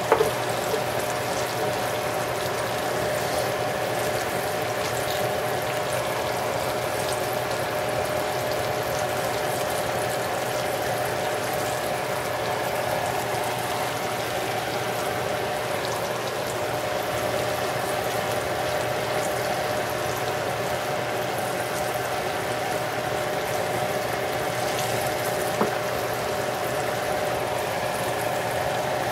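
Breaded zucchini slices shallow-frying in hot oil in a skillet: a steady bubbling sizzle that holds even throughout.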